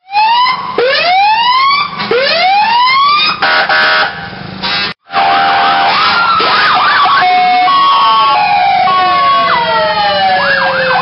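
Fire-truck sirens and horns sounding in a parade: two rising siren wails, then horn blasts. After a brief cut, a fast warbling siren and a long falling wail run together with more horn blasts.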